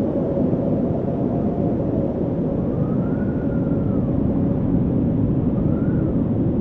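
Strong wind blowing with a steady low rush, and a thin whistle that rises and falls twice, about three seconds in and again near the end.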